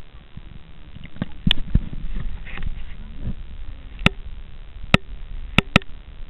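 Muffled underwater ambience picked up through an underwater camera, with a series of sharp clicks and knocks: a few in the first two seconds, single clicks about four and five seconds in, and a quick pair near the end.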